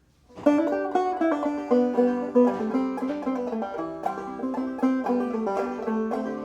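Five-string banjo played clawhammer style in open G tuning, starting a tune about half a second in: bright plucked melody notes over a steady ringing drone string, in a bouncing rhythm.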